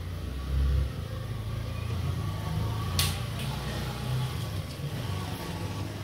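Low steady rumble with one sharp click about halfway through.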